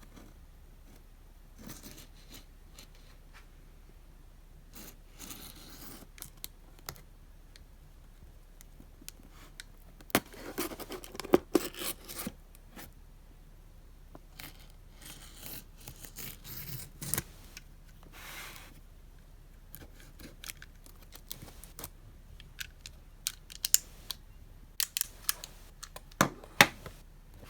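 Hands unpacking a Hobonichi Techo planner and its paper packaging: scattered clicks, taps and short rustles of paper, busiest in the middle and again near the end.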